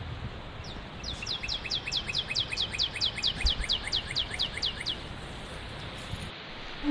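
A bird singing a rapid run of about twenty high, downslurred whistled notes, roughly five a second, lasting about four seconds and loudest in the middle, over a steady low background rumble.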